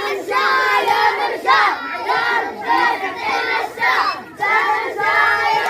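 A crowd of voices chanting a rain-prayer chant together, loud and continuous, with many voices overlapping.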